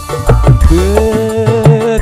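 Campursari music played live: hand-drum strokes that drop in pitch, over gamelan metallophones and keyboard. A long melodic note slides up into place about a third of the way in and then holds with a slight waver.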